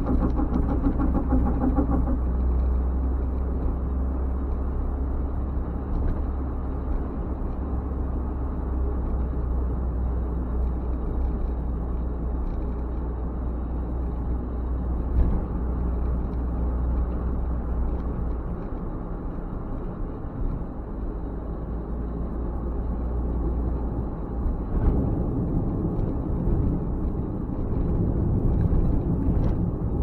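Car driving along a road, heard from inside the cabin: a steady low engine and tyre rumble. The deepest part of the rumble eases a little partway through.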